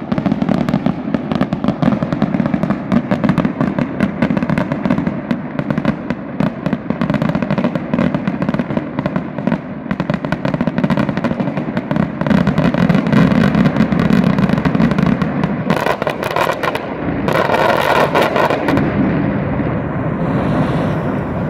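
Fireworks going off in a dense barrage: a rapid, continuous run of small bangs and crackles. Louder volleys come about 16 and 18 seconds in, then it dies away near the end.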